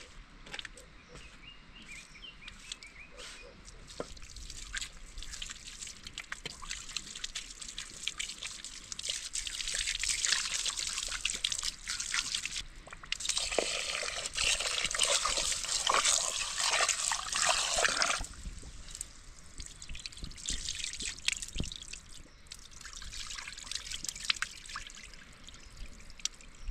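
Water trickling and splashing, with a louder stretch of pouring and splashing in the middle, dotted with small clicks and knocks.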